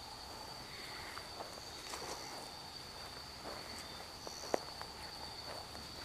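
Night insects keeping up a steady high trill, with slow footsteps over grass and leaf litter and a sharp click about four and a half seconds in.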